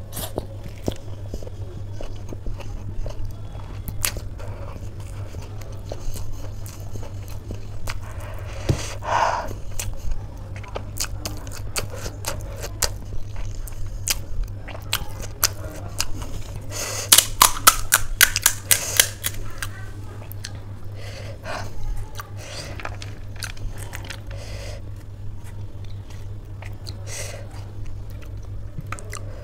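Close-miked chewing of a mouthful of chowmein noodles: wet smacking mouth sounds with many sharp clicks, and a denser run of loud clicks a little past the middle. A steady low hum runs underneath.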